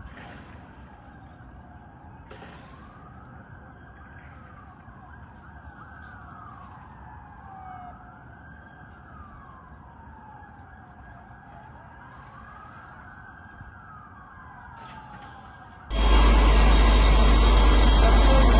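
Emergency vehicle sirens wailing, slowly rising and falling in pitch, with two sirens overlapping at times. About sixteen seconds in, a sudden loud, steady noise cuts in and drowns them out.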